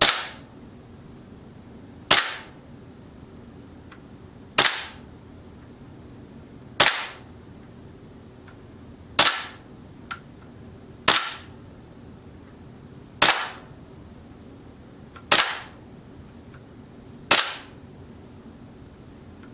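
KWC Desert Eagle .50AE CO2-powered airsoft pistol firing single shots on semi-auto: nine sharp cracks, spaced about two seconds apart.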